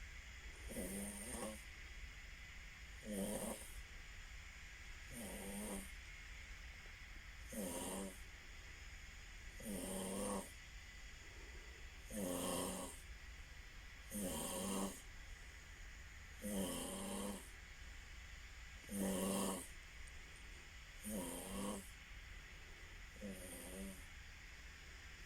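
A person snoring in a steady rhythm: about eleven rasping snores, each roughly half a second long, coming about every two seconds, over a faint steady high whine.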